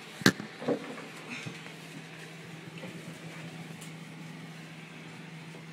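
A sharp knock about a quarter second in and a softer bump just after, then faint shuffling over a steady low hum.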